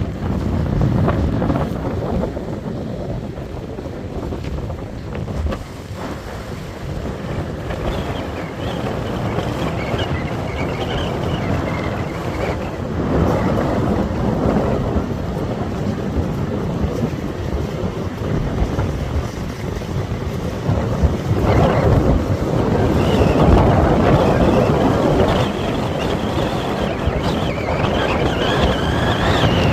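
Blizzard wind gusting hard against the microphone, rising and falling in strength, with a faint high whistle in the stronger gusts.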